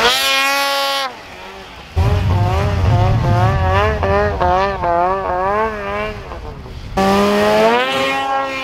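Polaris Dragon snowmobile's two-stroke engine revving as the sled spins in the snow. The pitch climbs sharply at the start, warbles up and down about twice a second through the middle, then climbs again near the end. The uneven, surging note is what a listener calls brap noises and takes for the sled sounding broken.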